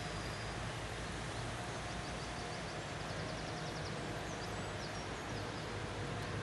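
Steady low rumble of city-centre background noise. About a second and a half in, a faint, rapid series of high ticking notes from a small bird, about eight a second, followed by a few short high chirps near the end.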